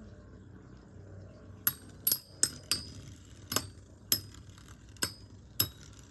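Two spinning Metal Fight Beyblades clashing in a stadium: from about a second and a half in, a run of sharp metallic clinks, about eight hits at uneven spacing, as the metal wheels knock together.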